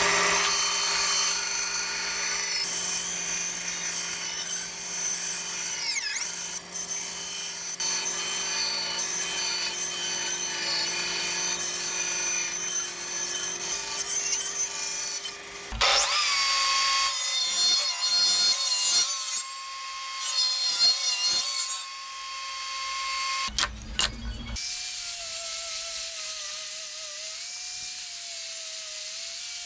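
Benchtop bandsaw running with a steady motor hum as it cuts a curve through a pallet board. About sixteen seconds in the sound changes to a higher, thinner whine with scattered knocks. From about twenty-five seconds an angle grinder fitted with a sanding pad runs, its pitch wavering as it sands the wood.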